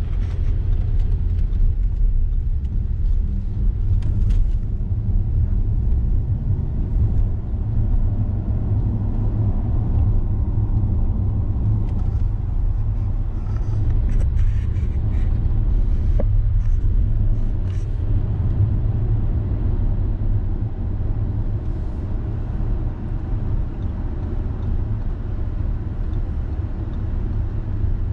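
Audi Q7 with a V6 engine being driven: a steady low rumble of engine and road noise, with a few faint clicks around the middle.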